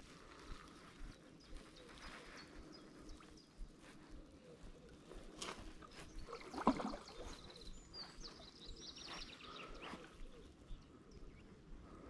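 Faint lakeside ambience with small birds calling thinly in the background and scattered light clicks. One brief, louder sound comes just past halfway.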